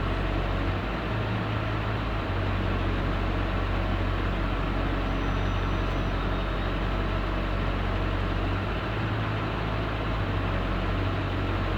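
Steady engine drone and road noise inside a moving 2004 Blue Bird school bus, with a strong low hum.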